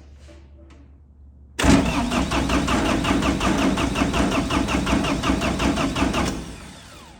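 Turbo diesel engine cranking over on its electric starter with an even, rapid chug for about five seconds, starting about a second and a half in, then a falling whine as the starter is released. The engine does not catch.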